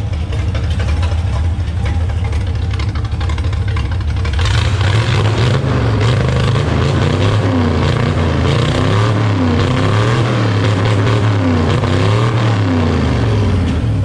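Vintage race car engine with an open, barely muffled exhaust, idling and then, about four seconds in, revved up and let back down several times in a row. The engine is warm but a little cold-blooded, and it revs with a little stumble.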